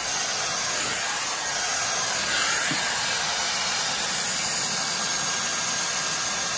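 Skin Research Institute StyleWrap 4-in-1 hot-air dryer brush with its straightening brush attachment, running with a steady rush of blown air as it works through hair.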